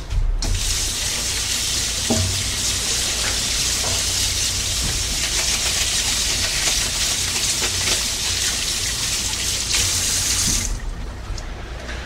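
Kitchen faucet running, its stream splashing over a plastic vacuum part held under it in a stainless steel sink. The water comes on about half a second in and is shut off near the end, with a few light knocks of the part being handled.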